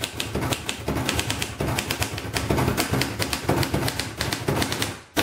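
Royal Companion manual typewriter being typed on: a quick, uneven run of key strikes, several a second, with the typebars hitting the platen. The typing stops with one last louder strike near the end.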